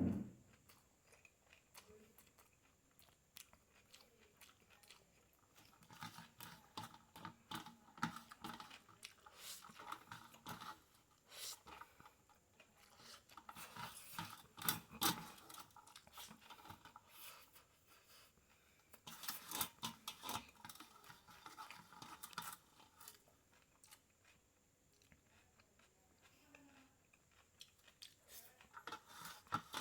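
A person chewing and eating noodles: faint, irregular runs of mouth clicks and smacks, with a quiet stretch at the start and another a few seconds before the end.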